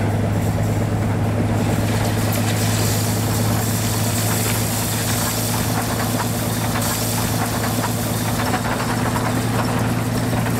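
Diesel locomotive with a front snowplow forcing through deep drifts: a steady low engine drone under the rushing hiss of snow being thrown aside, the rush growing louder about two seconds in as it comes closer.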